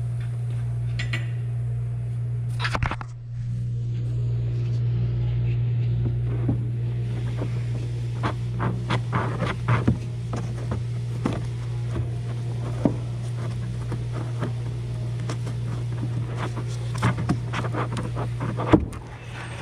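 Hand tools clinking, knocking and scraping on metal suspension parts in short, irregular strokes as a rear strut's mounting bolts are removed, over a steady low hum.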